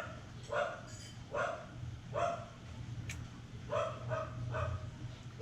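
A dog barking repeatedly, short barks roughly half a second to a second apart, with a pause of about a second and a half in the middle.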